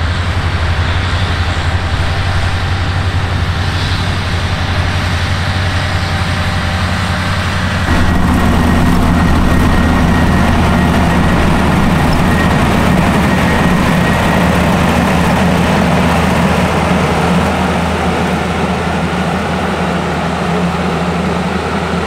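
First-generation AVR Puma self-propelled potato harvester running in the field as it lifts potatoes, a steady engine drone mixed with machinery noise. It grows louder about eight seconds in.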